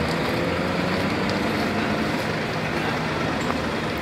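A steady low engine rumble with a constant hum, as of a vehicle idling.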